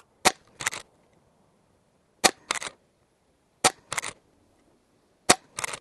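A .22 Umarex Zelos pre-charged pneumatic air rifle fired four times, about a second and a half apart. Each shot is a sharp crack followed a fraction of a second later by a brief cluster of smaller clicks.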